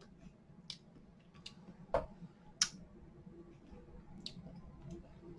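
A few faint, scattered clicks and ticks at irregular intervals, the sharpest about two seconds in, over a low steady room hum.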